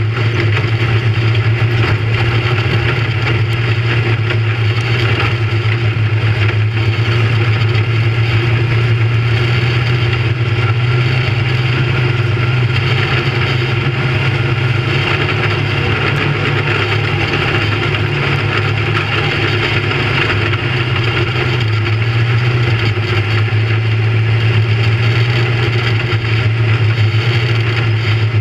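Big-block V8 engine of a dirt modified race car running under load, heard from inside the cockpit. The engine note holds steady and shifts up and down a little in pitch as the throttle changes, over a constant rush of wind and track noise.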